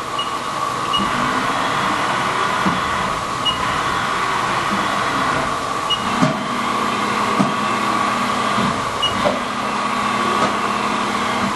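Haas VF-4B vertical machining center running under power: a steady machine whine, with several short knocks and brief high tones through it.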